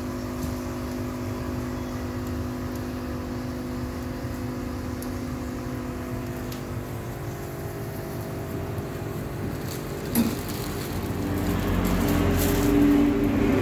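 Steady machine hum, as from the aquarium air pumps and filters. About ten seconds in there is a single knock, and after that louder handling noise builds up.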